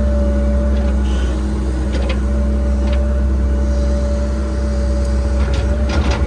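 Cat 306 excavator's diesel engine running steadily, with a steady whine over it and a few short knocks, a cluster of them near the end.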